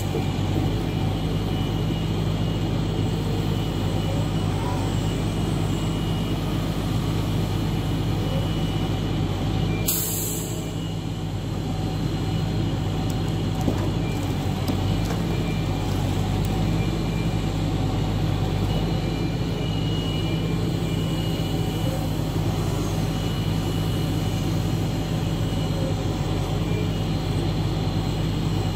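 Log truck's engine running at a steady speed while its hydraulic knuckle-boom loader lifts logs off the truck, with a short hiss about ten seconds in.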